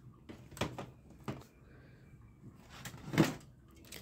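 Plastic toy guns handled in a pile: a few light clicks and knocks of hard plastic, the loudest about three seconds in.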